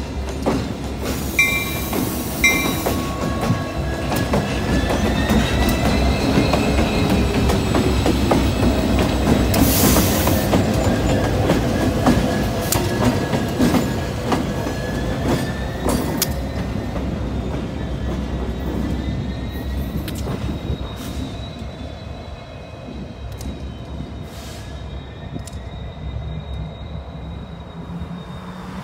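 Two Union Pacific GP60 diesel locomotives, each with an EMD 16-cylinder two-stroke engine, running light past at low speed, with wheel flanges squealing in thin wavering high tones. Loudest about a third of the way in as they pass close by, then fading as they move off.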